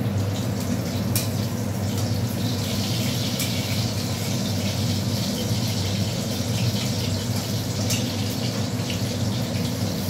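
Onion frying in hot oil in a pan, a steady sizzle that grows louder a couple of seconds in, over a steady low hum.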